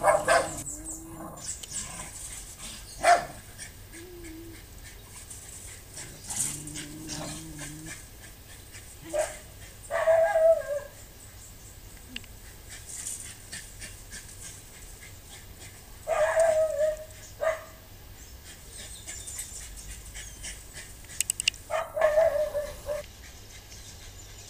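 Dogs barking in short bouts of about a second, three times, roughly six seconds apart.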